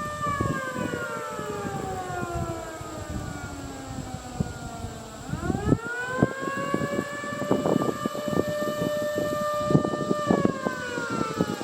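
Federal Signal Model 2 electromechanical tornado siren heard from about half a mile away, sounding a wail. Its tone slides down as it winds down, rises sharply back to full pitch about five seconds in, holds, then begins falling again near the end. Low rumbling noise runs underneath.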